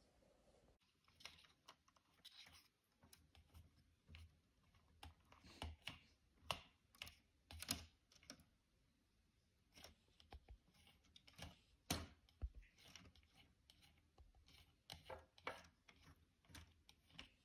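Faint, irregular plastic clicks and ticks from a Lego Technic bulldozer model's blade mechanism as the blade is raised and lowered.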